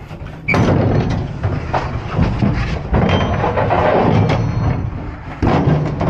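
Rattling and knocking inside an aluminium livestock trailer, starting about half a second in, easing off near the end, then one more short burst.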